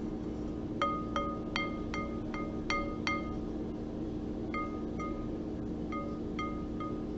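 A small single-pitched chime or bell struck over and over, about two to three light strikes a second, each ringing briefly. The strikes stop for about a second and a half midway, then resume, over a steady low hum.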